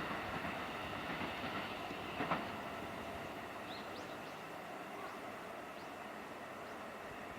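Train of E259 series Narita Express cars hauled by an EF66 electric locomotive rolling past, steady wheel-on-rail noise with a clunk about two seconds in, slowly fading as the train moves away.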